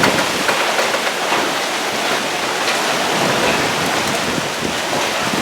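Strong wind rushing steadily through trees and buffeting the microphone.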